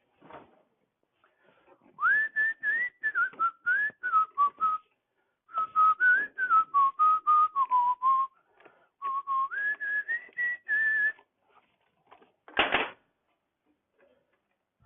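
A person whistling a wandering tune in two phrases, the pitch rising and falling. Near the end, a single clunk.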